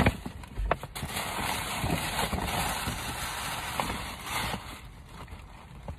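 Paper shopping bag rustling and crinkling as hands open it and dig inside, with a sharp snap right at the start. The rustling is densest for the first few seconds, then eases off.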